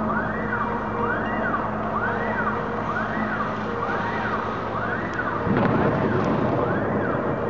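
A siren wailing, its pitch rising and falling a little faster than once a second, over steady street noise. About five and a half seconds in, a louder low rumble joins.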